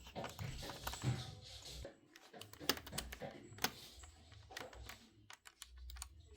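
Hands working inside an opened laptop while an SSD is fitted: irregular clicks and taps of small plastic and metal parts, two louder ones near the middle.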